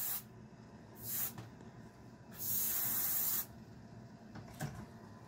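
Iwata HP Eclipse airbrush spraying paint onto a fishing lure in short bursts of hiss: one cutting off at the start, a brief puff about a second in, and a longer spray of about a second midway.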